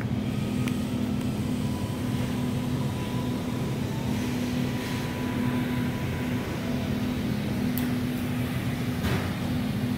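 Steady low mechanical hum of indoor store background machinery, with a faint high tone running over it and a few faint ticks.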